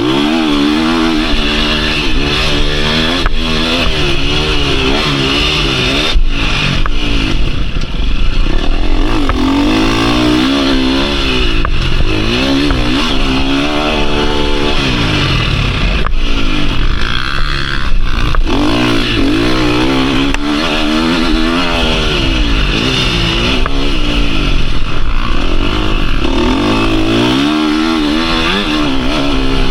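KTM 350 SX-F's single-cylinder four-stroke engine ridden hard, revving up and falling off again and again through the gears, with wind noise and a few sharp knocks.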